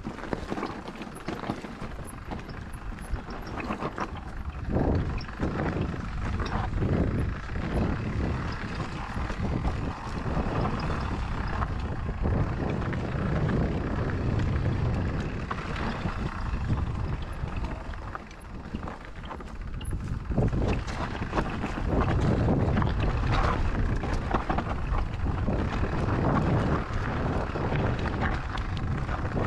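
Mountain bike riding a rough trail: wind buffeting the microphone over a steady tyre rumble, with frequent rattling knocks from the bike over the ground.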